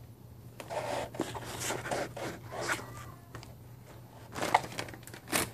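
Scattered scraping, rubbing and rustling sounds with a few light knocks, from things being handled on a kitchen counter, over a faint steady hum.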